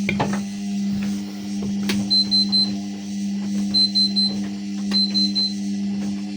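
Ariston washing machine running with a steady low hum, a knock at the start and another about two seconds in. From about two seconds in, three quick runs of about four high beeps each come a little over a second apart.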